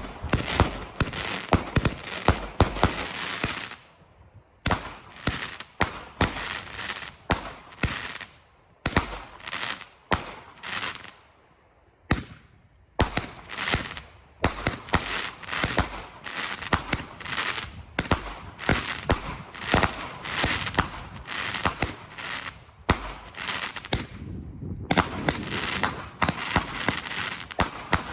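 Raccoon 'Atomic Particles' consumer firework cake firing shot after shot: sharp launch thumps and loud breaks with crackle, in rapid volleys separated by brief lulls.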